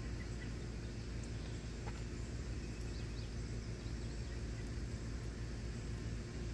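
Steady low outdoor rumble, with a few faint short bird chirps about half a second in and again around three seconds in.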